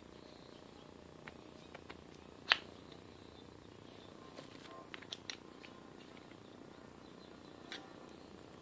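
Steel broach and bushings from a keyway broaching set clicking and clinking as they are handled and taken out of their wooden case: a few scattered sharp clicks, the loudest about two and a half seconds in.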